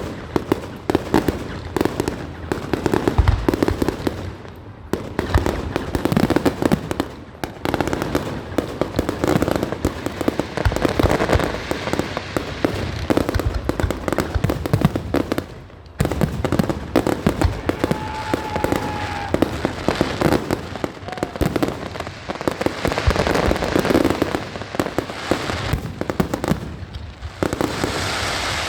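Fireworks display: a rapid run of shell bursts and bangs with crackling between them, and a few short whistles about eighteen seconds in.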